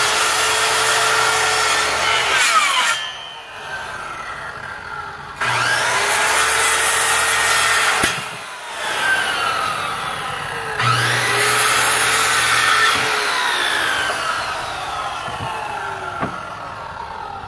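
Electric saw cutting pallet wood in three runs, each starting loud and sharp: at the start, about five seconds in and about eleven seconds in, the last one tailing off slowly near the end.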